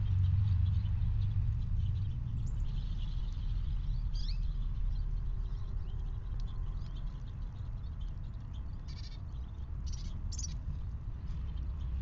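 Steady low outdoor rumble with a few short, high bird chirps over it: one falling call about four seconds in and a quick few near the end.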